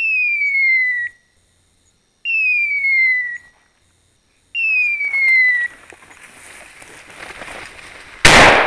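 Three identical falling electronic tones about two seconds apart from the hunting dog's beeper collar, then a rising rustle and a single 12-gauge shotgun shot near the end.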